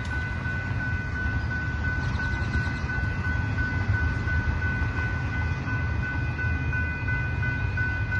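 Railroad grade-crossing warning bell ringing steadily while the gate arms rise, over a steady low rumble.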